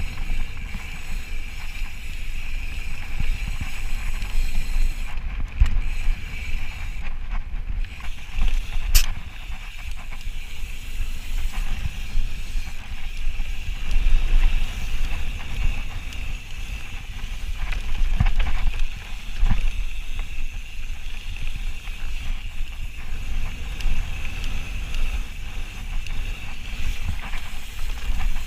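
Ibis Ripley full-suspension mountain bike descending a dirt trail at speed: a steady rush of wind on the microphone over the rumble and rattle of tyres and frame on the bumps, with occasional sharp knocks.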